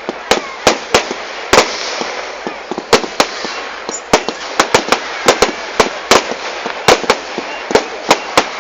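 Fireworks going off: a fast, irregular run of sharp bangs, about two a second, over a steady crackling hiss.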